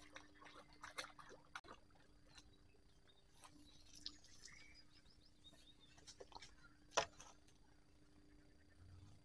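Near silence with faint, short bird chirps and scattered small clicks, the sharpest about seven seconds in.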